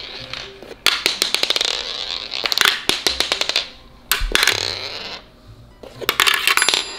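Background music with a beat: regular clusters of percussive clicks over a stepping bass line.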